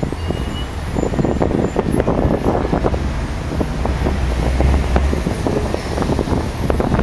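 Wind buffeting the microphone outdoors. It gives a heavy low rumble with uneven gusty crackle that swells and eases.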